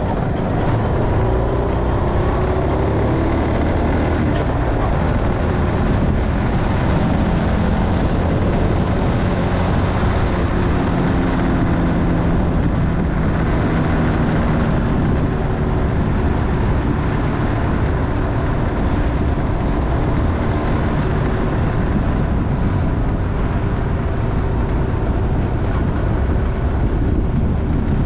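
Motorcycle riding along the road, the engine note drifting slightly in pitch under a loud, steady rush of noise.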